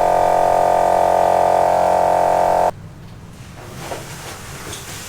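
A loud, steady buzzing tone that cuts off abruptly a little under three seconds in, followed by faint knocks and rustling.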